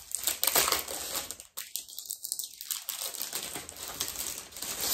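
Packaging crinkling and crackling as it is opened by hand to get a necklace set out.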